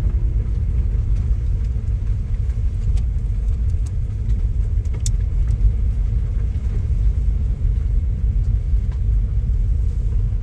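Loud, steady low rumbling noise with a few faint clicks, starting abruptly and without music.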